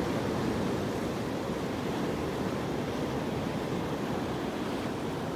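Ocean surf breaking over rocks and washing up a sandy beach: a steady, even rushing of waves.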